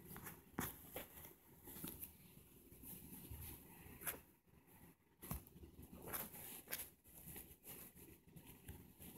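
Faint, irregular taps and rustles of a phone being handled while its screen is tapped and swiped, over low room noise.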